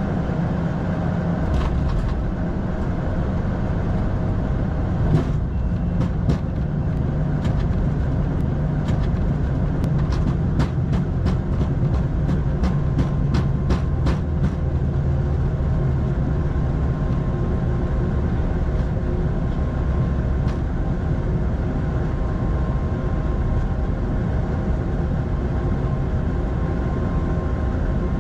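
Steady cockpit noise of an Airbus A220-100 in flight on approach: rushing airflow and a low engine hum. A scatter of light clicks comes between about five and fifteen seconds in.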